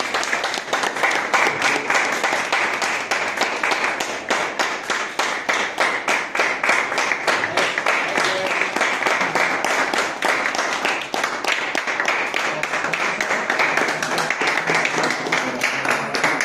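An audience applauding: many hands clapping in a dense, steady patter that keeps up without a break.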